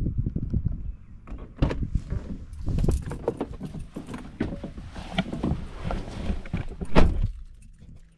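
Body-camera handling, footsteps and scattered knocks and clicks as a person climbs into a pickup truck's cab, with a loud thump about seven seconds in as the truck's door is shut.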